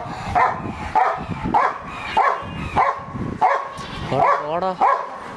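Pit bull barking over and over, about one bark every half second, with a wavering whining call about four seconds in.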